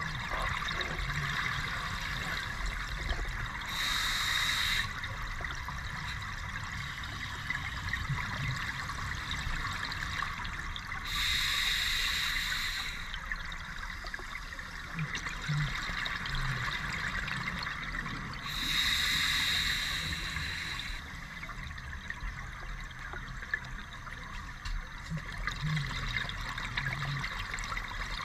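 Scuba diver's open-circuit regulator heard underwater: three bursts of exhaled bubbles about seven seconds apart, one per breath, over a steady underwater hiss and rumble.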